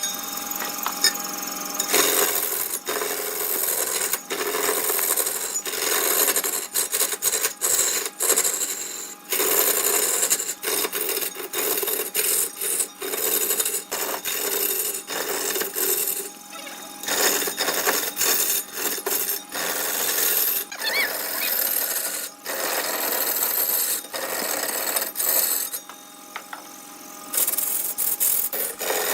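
Wood lathe turning while a hand-held turning tool cuts into the spinning wood, a continuous scraping, shaving noise broken by many short gaps as the tool comes off and back onto the wood, over the faint steady hum of the machine.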